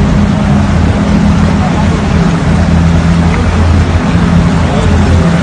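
Fast-flowing floodwater rushing across a road in a loud, steady wash of noise, with a steady low hum underneath.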